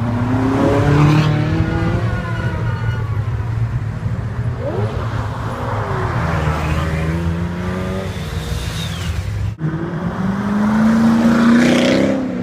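Supercar engines revving and accelerating past, their pitch rising and falling. The sound breaks off abruptly about nine and a half seconds in, and another engine then climbs in pitch near the end.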